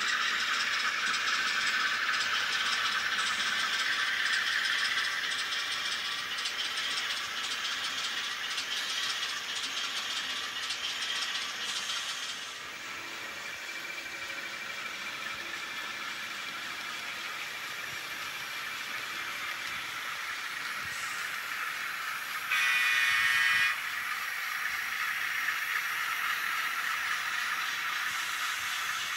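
N-scale model passenger train led by Atlas Amtrak Dash 8 locomotives running on the layout's track: a steady rattling hiss of wheels and motors, softer after about twelve seconds. About three-quarters of the way through, a loud pitched tone sounds for about a second.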